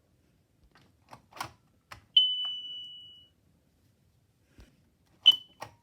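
A few plastic clicks, then a smoke and carbon monoxide alarm's sounder gives one high beep that fades over about a second. Near the end comes a second, short chirp with a click.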